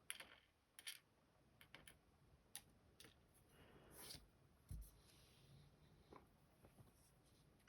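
Faint, scattered light clicks and a soft scrape of tweezers handling tiny brass key pins as a dimple lock's plug is taken apart.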